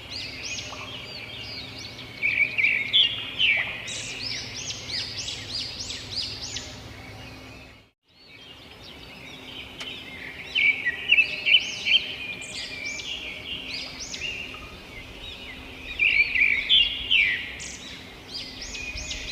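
A chorus of songbirds chirping, many short overlapping chirps and quick up-and-down calls. The sound fades out briefly to silence about eight seconds in, then resumes.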